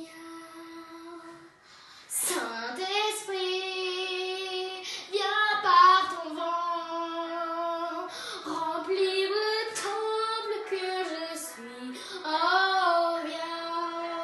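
A young girl singing solo in long held notes, softly at first and then louder from about two seconds in.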